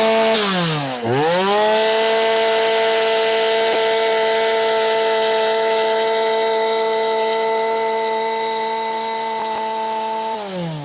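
Two-stroke chainsaw fitted with a carving bar, revved at full throttle. The revs dip and climb back up about a second in, hold steady, then fall away near the end. The chain is being run to check that the repaired carving bar is now oiling it.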